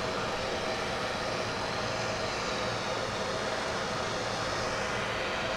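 Handheld gas torch burning with a steady roar as it heats a dirt-bike fork's threaded joint to soften the thread locker.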